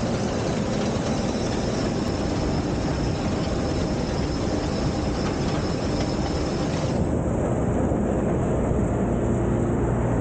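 Case IH combine harvester running, a steady, loud mechanical noise of engine and threshing machinery with a low hum. About seven seconds in, the high hiss drops away.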